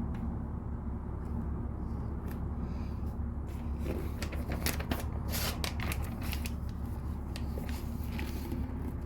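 Plastic LEGO pieces clicking and rattling as they are handled and pressed together, with a cluster of quick clicks about five seconds in, over a steady low hum.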